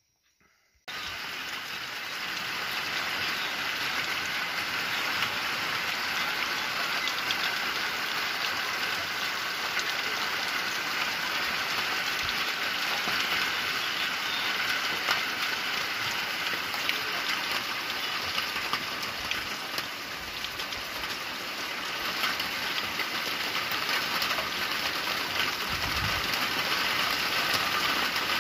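Steady rain falling on open water, an even hiss of drops striking the surface, which starts suddenly about a second in.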